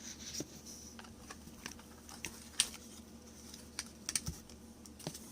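Irregular light clicks and taps from small products and their packaging being handled, a few in quick succession near the end.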